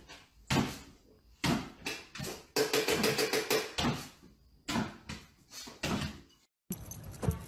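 Irregular thumps and knocks, about a dozen, from a small white dog hopping on its hind legs and landing on a wooden floor.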